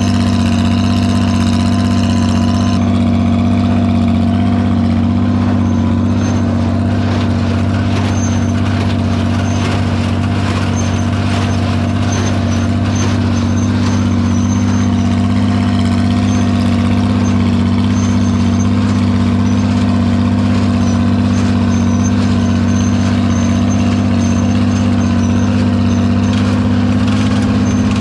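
Farmall 460 tractor engine running at a steady speed, a constant low drone. A higher whine over it stops about three seconds in.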